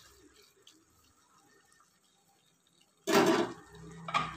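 A metal ladle stirring pasta in an open pressure cooker: faint scraping at first, then a loud ringing clang against the pot about three seconds in, and a sharp knock about a second later.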